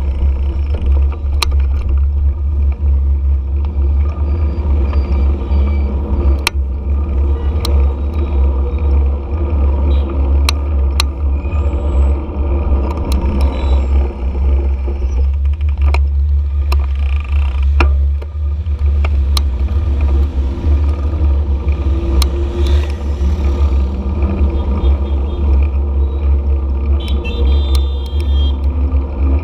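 Riding a motorcycle through city traffic: heavy wind rumble on the microphone over the running engine and passing traffic, with scattered clicks and a short run of high beeps near the end.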